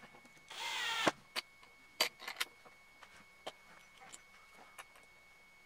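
Plastic planetary gearbox parts of a cordless drill being pressed together and twisted into place by hand: a brief scraping rasp, then a handful of small, sharp plastic clicks and taps.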